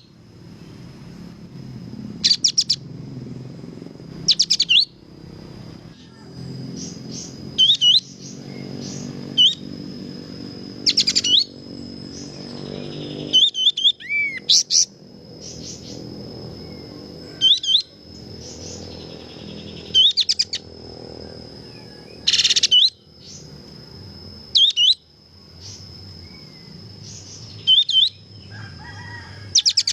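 Kapas tembak bulbul singing: short, sharp, sweeping chirped phrases repeated about every two to three seconds, over a steady high-pitched tone and a low background hum.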